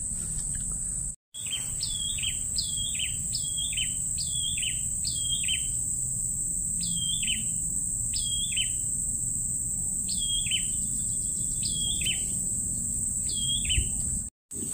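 A bird calling over and over, each call a quick hooked note that falls in pitch, about two a second in short runs. Under it runs a steady high insect drone. The sound cuts out completely for a moment twice, about a second in and near the end.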